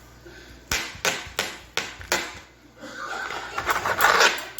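A kitchen knife knocking on a cutting board about five times, roughly three a second, while trimming raw chicken breast, followed by a longer rustling scrape that grows louder near the end.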